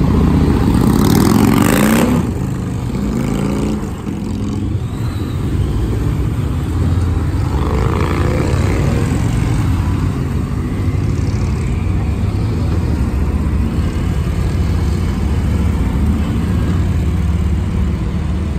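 Motorcycles accelerating one after another as they ride off a ferry, their engine notes rising as they pull away, over a steady low rumble. The loudest pass comes in the first two seconds.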